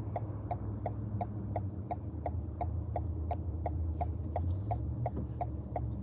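Car turn-signal indicator clicking steadily, about three clicks a second, over the low hum of the running engine inside the cabin.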